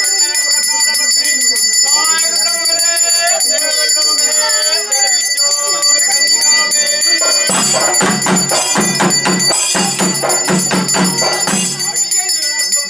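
Kerala temple procession music: bells and cymbals ring steadily while a wavering melody plays, then about halfway through a burst of fast, dense drumming takes over for about four seconds before the melody comes back.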